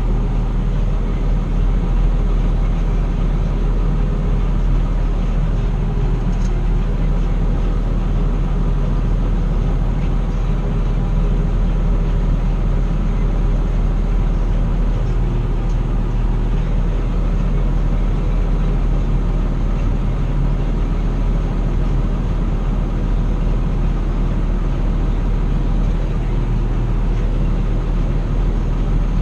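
Large farm machine's engine running steadily, a constant low drone with no change in speed or load.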